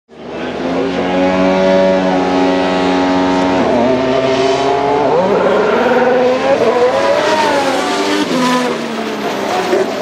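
Formula 1 cars' 1.6-litre V6 turbo-hybrid engines running at racing speed on track. The engine note holds steady and high for the first few seconds, then climbs and falls repeatedly through gear changes and passes.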